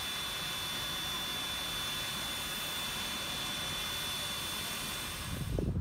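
Steam hissing steadily from the top of the boiler of the Jeddo Coal No. 85, a small 0-4-0T tank steam locomotive, as it stands and vents. It is a constant high hiss with a thin steady tone in it, and it cuts off near the end.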